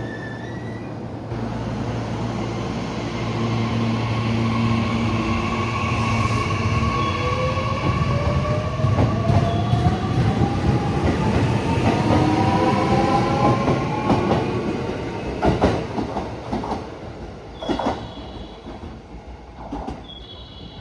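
Electric train pulling away: the motor whine rises steadily in pitch as it accelerates. Near the end the wheels clack over the rail joints while the sound fades.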